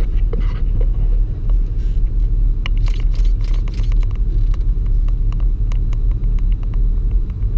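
Steady low rumble of a Vauxhall Astra heard from inside the cabin, engine running with the cooling fan just kicked in. Scattered light clicks and scrapes on the bodywork come between about 2.5 and 6 seconds in, from a monkey pulling at the car.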